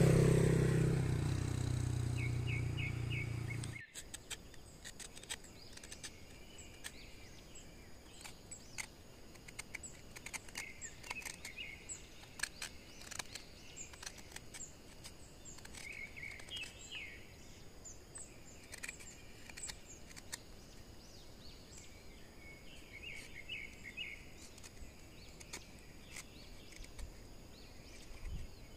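Outdoor rural background: birds chirping in short repeated trills over a steady high-pitched hum, with scattered faint clicks. A loud low rumble fades over the first four seconds and cuts off abruptly.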